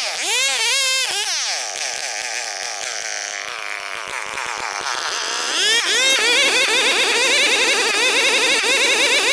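An old chainsaw cutting a big Borneo ironwood log, its engine pitch wavering up and down as it works. The revs sag for a few seconds, then pick back up and get louder about six seconds in.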